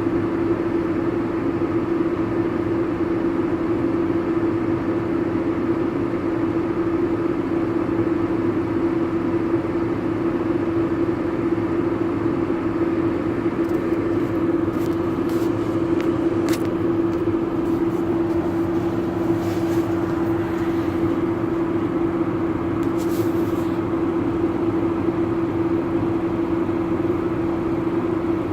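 Combine harvester running steadily during wheat harvest: a constant machine hum with a strong steady tone, with a scatter of faint clicks and rattles in the middle.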